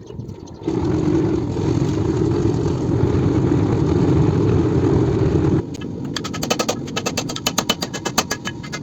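Metal forging: a steady low roar, typical of a forge burner or blower, runs for about five seconds and cuts off, then a fast run of sharp metallic strikes follows, several a second, like hammer blows on steel.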